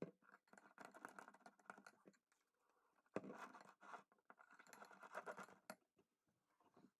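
Faint, sticky crackling and scraping of a slime mixture of glue, green colouring, glitter and sand being stirred or worked, in two stretches of about one and a half and two and a half seconds.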